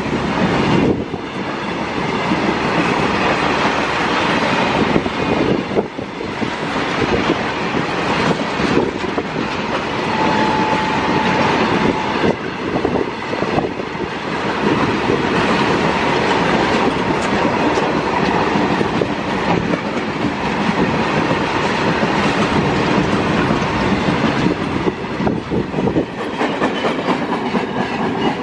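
Indian Railways freight rake of BCNA covered wagons rolling past at speed, a steady clickety-clack of wheels over rail joints with a continuous rumble.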